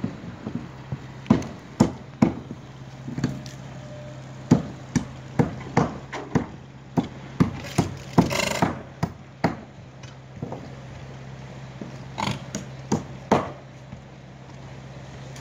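Irregular sharp knocks and bangs of wood as old roof plank sheathing is torn off and broken boards are thrown down onto a debris pile, with a longer clatter about eight seconds in. A steady low hum runs underneath.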